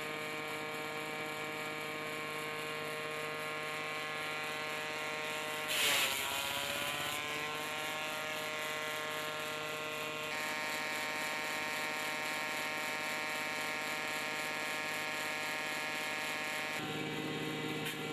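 Power tiller-driven chipper running steadily with a constant machine hum. About six seconds in a coconut frond is chipped: a loud burst of cutting, and the pitch sags under the load and climbs back.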